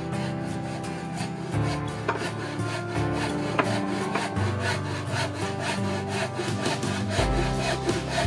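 A hammer tapping nails into 1x2 wood strips: a couple of separate blows early on, then quicker, lighter taps in the second half. Background music plays under it.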